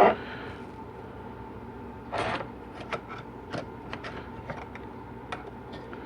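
A knock, then light scattered clicks and scrapes of a small hand tool working against a metal transmission pump body while prying out a tiny E-clip, over a steady faint hum.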